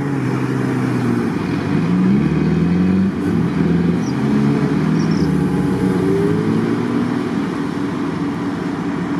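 Off-road 4x4's engine running and revving, its pitch rising and falling as it works through the mud.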